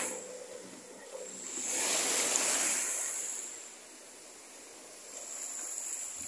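Small waves washing in over the shallows at the water's edge, a hissing wash that swells and fades twice.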